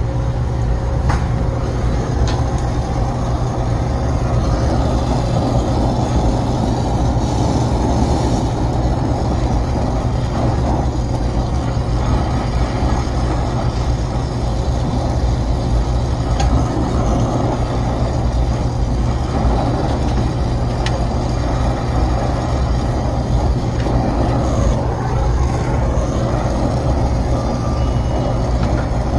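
Oxy-acetylene torch brazing a copper refrigeration line onto a stainless-steel TXV fitting, over a steady, loud low rumble of machinery; a few short beeps near the end.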